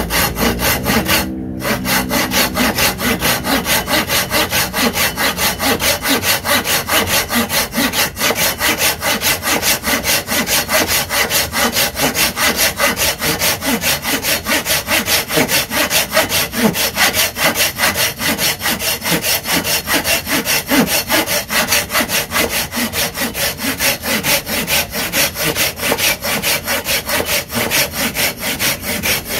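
Silky Pocketboy 170 folding pull saw cutting through a wooden block, its teeth rasping through the wood in steady back-and-forth strokes.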